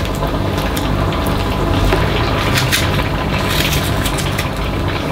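Steady, loud machine hum with a low drone, over which come a few light crunching clicks of a small knife cutting apple pieces by hand.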